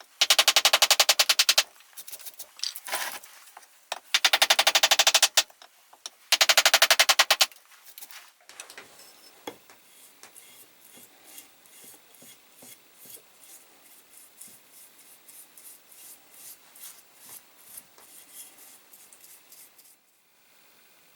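Three bursts of rapid, evenly spaced strikes about a second long each, followed by a long stretch of faint, irregular ticking and scraping that stops near the end.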